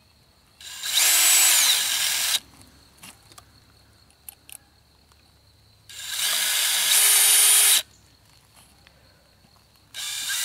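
Cordless drill boring holes through the plastic cap of a drink bottle, run in three short bursts of about two seconds each, the last starting near the end.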